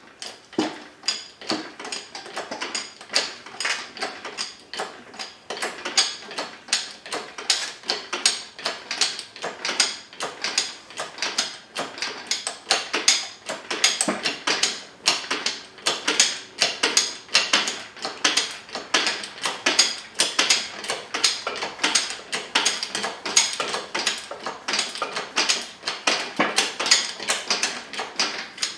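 Engine hoist ratcheting steadily as a Subaru 2.5L flat-four engine is lifted out of the car, a sharp click about two or three times a second.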